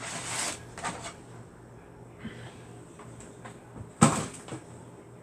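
Rustling and light clicks of things being handled at a refrigerator door, then a single sharp knock about four seconds in.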